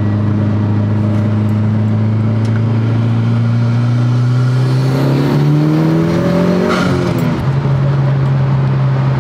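Car engine heard from inside the cabin while accelerating up a freeway on-ramp: a steady drone whose pitch climbs, drops suddenly about seven seconds in as the gearbox shifts up, then holds steady.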